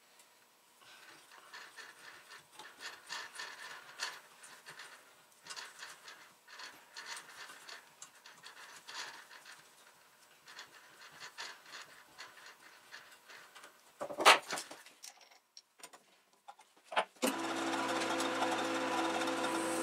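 A T-handle tap wrench turning a 1/4-20 tap into a small part clamped in a bench vise, played at four times speed: a run of irregular light clicks and scrapes. A loud knock comes about 14 seconds in, and near the end a small lathe's electric motor starts and runs steadily.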